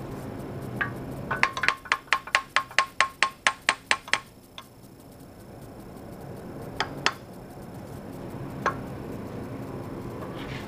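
Hammer tapping on steel: a quick run of light ringing taps, about five a second, then a few single taps spaced a couple of seconds apart.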